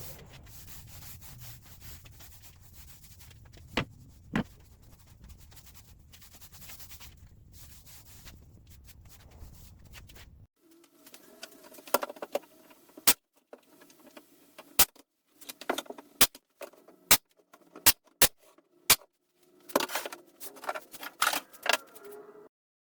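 A faint steady hiss with two light knocks, then, from about halfway, a string of sharp clicks and knocks, roughly one a second, some with a short ring.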